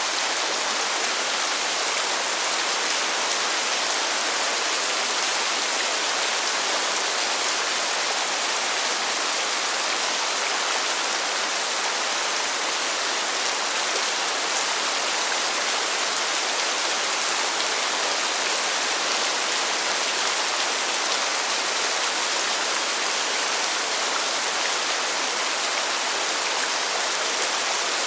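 Steady rain falling, an even, unbroken hiss with most of its weight in the high end.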